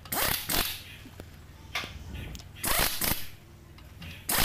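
Pneumatic impact wrench hammering in several short bursts as it runs the wheel nuts tight.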